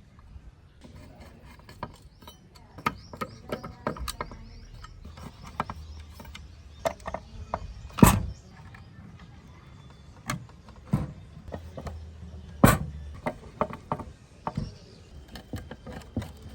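Hand work at a workbench: irregular clicks and knocks of tools and parts being handled, with two much louder sharp knocks, one about eight seconds in and one near thirteen seconds.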